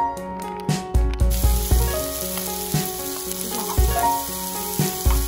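Background song with low bass thumps and held notes; about a second in, a steady hiss joins the music and stays.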